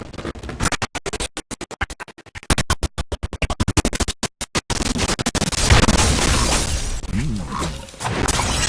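Music, chopped into a fast stutter for the first few seconds, then playing on continuously.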